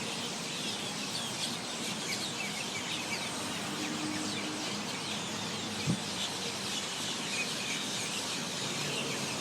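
A large flock of small parrots calling all at once: a dense, continuous chatter of many overlapping short, high chirps and squawks. One brief knock about six seconds in.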